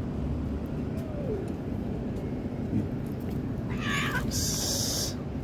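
Tabby cat giving a short snarling yowl about four seconds in, then a sharp hiss: an aggressive warning aimed at a kitten.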